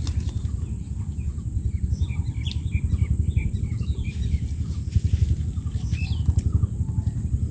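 Small birds chirping outdoors, a run of short chirps clustered in the first half, over a steady low rumble and a constant high-pitched hiss.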